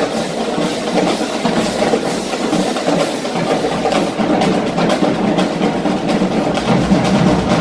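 Marching drumline of snare drums and bass drums playing a continuous, dense rhythm of strikes.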